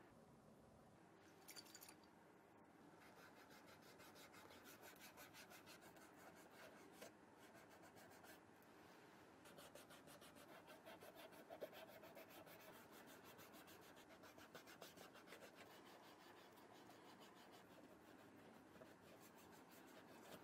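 Faint, rapid scratching and rubbing as a thin stick is scraped back and forth along the seam of a sneaker's rubber sole to work out dirt, in quick, even strokes.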